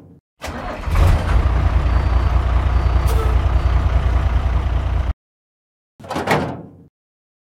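Tractor engine running with a rapid, even pulsing beat, heavy in the low end, that cuts off abruptly about five seconds in. A brief fading burst of noise follows about a second later.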